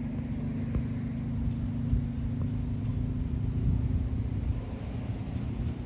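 Vehicle engine running steadily with a low hum and rumble.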